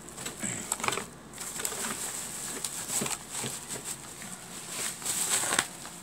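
Clear plastic packaging around a mechanical keyboard rustling and crinkling as the keyboard is lifted out and handled, in several bursts.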